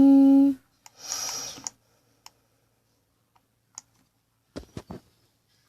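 A long, loud, steady-pitched burp held like a sung note cuts off about half a second in. A short breathy hiss follows, then a few scattered sharp clicks, the loudest cluster near the end.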